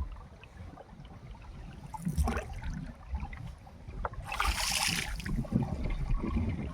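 Water splashing and sloshing around a small fishing boat moving through the water, with two louder splashes about two seconds in and again about four to five seconds in, over a low rumble of wind on the microphone.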